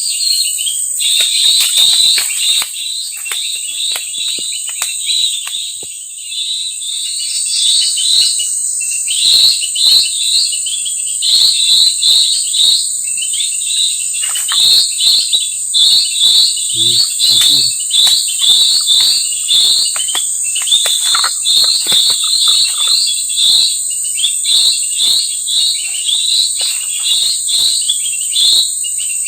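Small birds chirping in fast, repeated runs of short notes, over a steady high-pitched insect drone.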